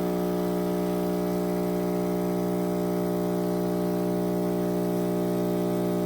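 Chefman espresso machine's pump running with a steady, even buzzing hum.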